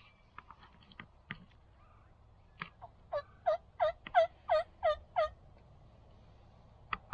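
Turkey calling: a run of about eight short notes, each breaking downward in pitch, about three a second and loudest in the middle of the run. A few sharp clicks come before it and one near the end.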